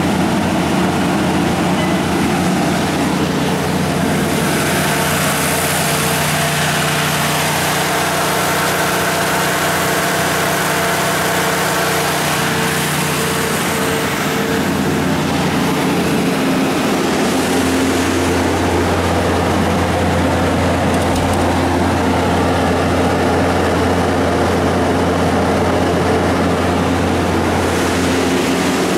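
Caterpillar/Olympian G60F3 natural gas generator set running steadily at its constant 1800 rpm governed speed. Its Ford WSG-1068 V10 engine gives a continuous hum under an even rush of fan noise.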